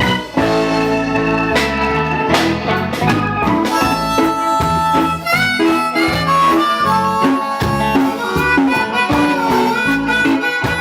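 Live band playing reggae, with held lead notes over bass and rhythm.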